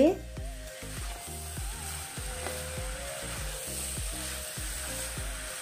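Mutton pieces frying with a steady sizzle in hot oil and ginger-garlic paste in a pan, turned with a wooden spatula. Background music with a steady beat plays underneath.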